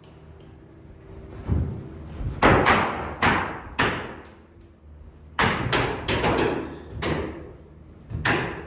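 Construction nailing: about a dozen sharp bangs in irregular runs, ringing on through the bare wood-framed house, over a low steady hum.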